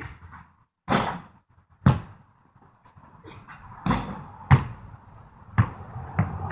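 A basketball bouncing: about six separate thuds, spaced roughly a second apart and coming closer together near the end.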